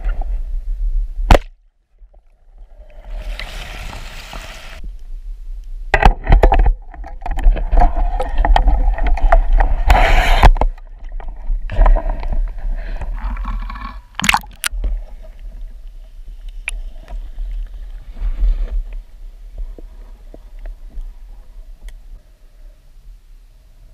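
Water noise heard through an underwater camera while a spearfisher swims with a speargun: a steady deep rumble with spells of gurgling, sloshing water movement, and several sharp clicks and knocks.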